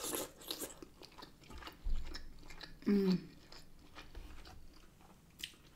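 Close-up eating sounds: wet chewing, biting and lip smacks as shell-on shrimp in butter sauce are eaten, with a brief closed-mouth hum about three seconds in.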